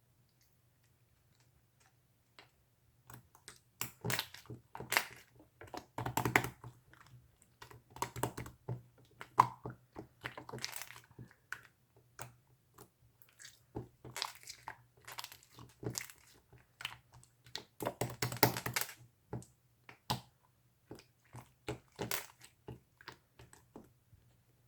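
Irregular crunchy crackles and clicks, coming in clusters, over a faint steady low hum.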